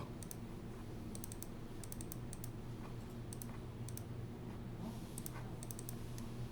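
Clicking at a computer mouse and keyboard: short sharp clicks, many in quick pairs and triples, over a steady low hum.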